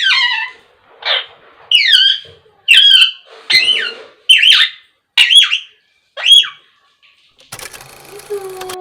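Pet parakeet giving a run of eight loud, shrill squawks about one a second, each a quick sweep in pitch. Near the end a rougher rasping sound with a low drawn-out tone starts.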